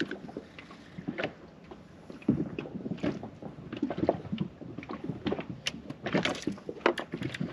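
Handling noises from fishing tackle in an inflatable boat: irregular clicks, knocks and rustles as a rod and line are worked by hand, busiest near the end.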